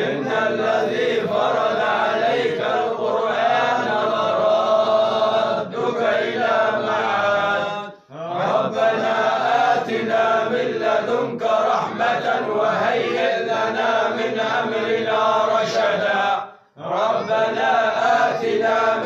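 Voices chanting a Sufi dhikr in long drawn-out phrases rather than speaking. The chant breaks off twice, briefly, for breath, about 8 and 17 seconds in.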